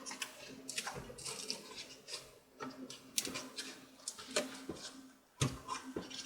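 Scattered clicks and knocks of a laptop and its plastic parts being handled on the bench, with a steady low hum underneath.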